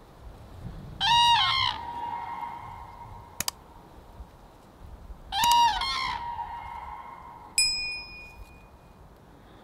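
Common cranes bugling: two loud trumpeting calls about four seconds apart, each a few rolling notes that linger as an echo. Between and after them come a mouse-click sound effect and a ringing bell ding from a subscribe animation.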